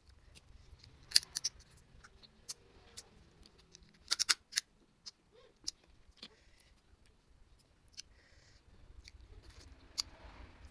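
Crab shell cracking and crunching in sharp, scattered clicks, with louder clusters about a second in and about four seconds in.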